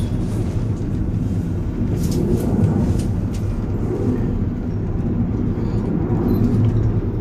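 Steady low rumble inside a moving cable-car gondola as it travels along the cable, with a few faint ticks about two to three seconds in.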